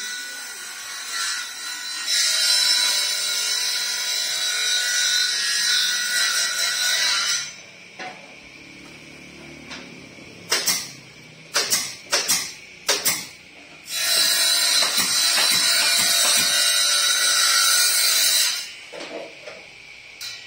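A power tool cutting or sanding wood, running in two long high-pitched spells of several seconds each. A handful of sharp knocks of wood come in the quieter gap between them.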